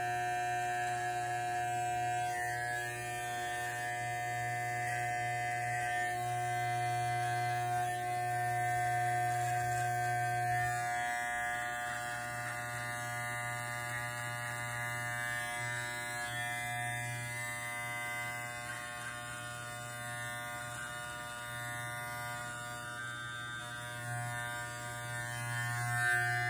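Electric hair clipper (T-blade trimmer) running with a steady buzz while it trims the beard line and edges for a shape-up.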